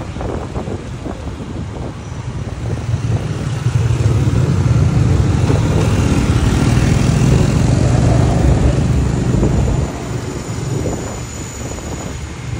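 Road vehicle running: engine and road noise, swelling louder a few seconds in and dropping back about ten seconds in.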